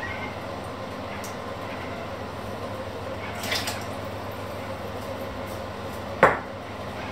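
Kitchenware being handled over a steady background rumble: a brief clink about three and a half seconds in, then one sharp knock of something hard about six seconds in.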